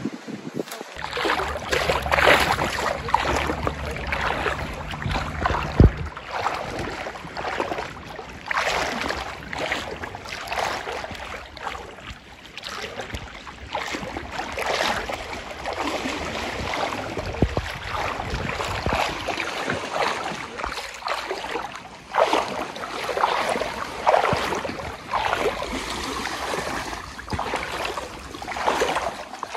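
Moving water splashing and sloshing in irregular surges every second or two, with a low steady hum for the first few seconds.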